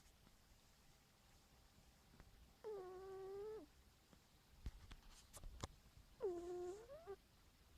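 A cat snoring with a pitched, squeaky tone on its breaths: two drawn-out calls about a second long, some three and a half seconds apart, the second rising in pitch at its end.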